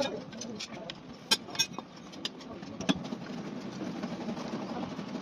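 A few sharp metallic clinks of hand tools against engine parts during engine disassembly, spaced irregularly, over a steady workshop background noise.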